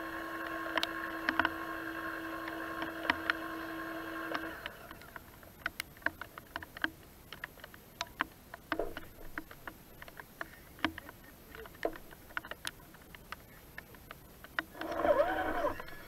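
Small electric winch motor and gears on a Traxxas Summit RC truck running with a steady whine, which stops about four and a half seconds in. Scattered light clicks and ticks follow, and near the end the motor runs again briefly, louder, its whine wavering in pitch.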